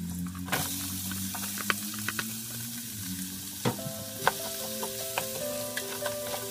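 Sliced onions hit hot oil in an aluminium pot and sizzle loudly from about half a second in. Later a spatula stirs them with the sausage and carrots, clicking and scraping against the pot.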